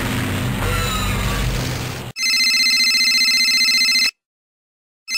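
A noisy stretch of music and sound effects cuts off abruptly about two seconds in. A telephone then rings with an electronic trilling ring lasting about two seconds, goes silent for about a second, and starts ringing again at the end.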